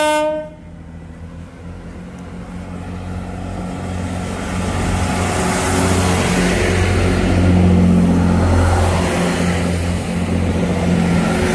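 Class 166 diesel multiple unit pulling away from a station and passing close by, its diesel engines running under power and growing louder over the first several seconds, after the last note of its horn cuts off right at the start.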